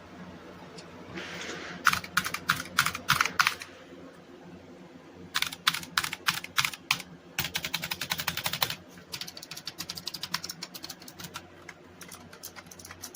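Typing on the clicky optical switches of a Razer Huntsman Mini 60% keyboard: sharp key clicks in bursts, with a fast run of keystrokes around the middle and lighter, fainter typing near the end.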